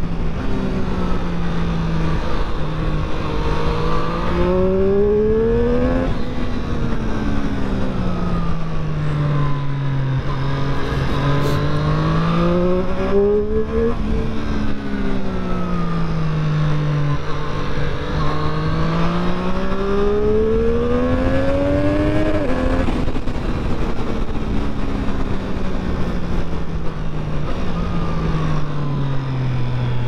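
Triumph Street Triple 765 RS's 765 cc inline three-cylinder engine and exhaust on the move, revs climbing under throttle and then falling away slowly as the throttle eases, three times over, then holding fairly steady before dropping near the end. Constant wind and road rush on the helmet microphone runs underneath.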